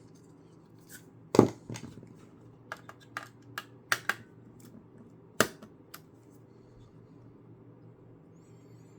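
Irregular clicks and knocks of small laptop parts being handled while the processor is taken out and reseated, with two sharper knocks about a second and a half in and about five and a half seconds in. After about six seconds only a faint steady hum remains.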